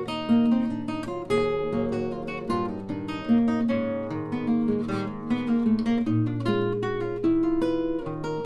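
Acoustic guitar playing a continuous passage of quickly picked and strummed notes, several note attacks a second.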